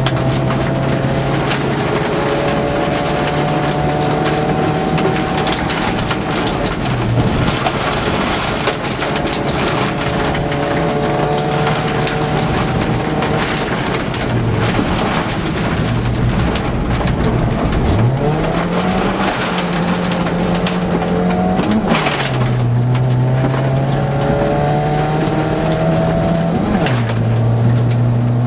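Mk2 VW Golf rally car's engine heard from inside the cabin, pulling hard at high revs on a gravel stage. About two-thirds through the revs fall low and climb back up, with quick drops in pitch at gear changes after that. Gravel crunches and rattles under the car throughout.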